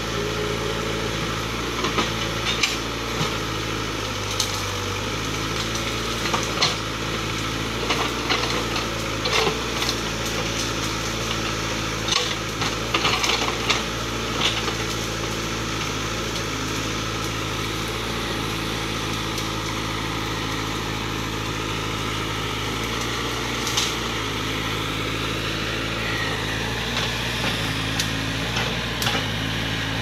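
Case 580K backhoe loader's four-cylinder diesel engine running steadily under load while the backhoe bucket rips through brush, with frequent sharp cracks and clanks of snapping branches and metal in the first half and a few more near the end.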